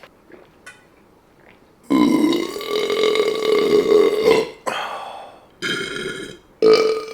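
A man burping loudly from a very full stomach: one long drawn-out burp about two seconds in, then a shorter burp, and a third starting near the end.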